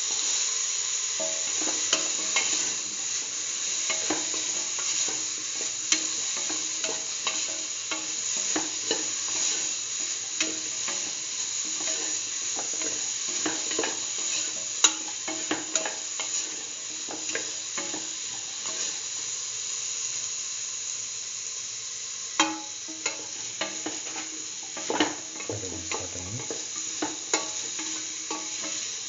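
Potato and bell pepper pieces sizzling in hot oil in a steel pan while being stirred, with a steady hiss and irregular scrapes and taps of the stirring utensil against the pan.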